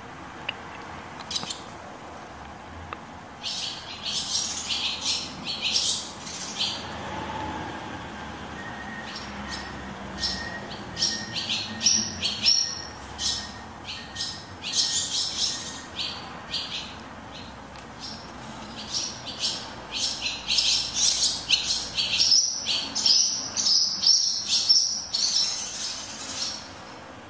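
Barn swallows, recently fledged young among them, twittering in bursts of short high chirps as they fly about, busiest near the end.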